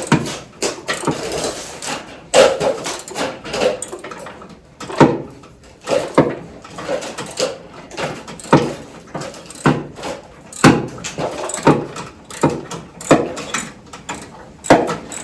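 A wrench or hand tool clacking against metal in a run of sharp knocks, roughly one a second, as a tight brake line fitting is worked loose.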